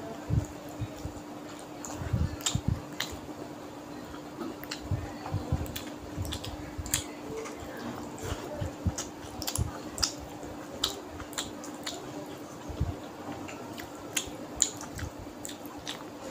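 Close-up chewing of hand-fed rice and fish curry: many short, wet clicks and smacks of the mouth, with soft squishes, over a steady low hum.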